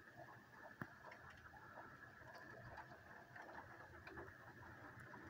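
Faint rain, drops landing as many light irregular ticks, with one sharper click about a second in.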